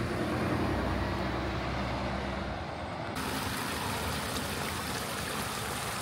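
An engine idling with a steady low hum that fades out about three seconds in, when a steady hiss rises over the street noise.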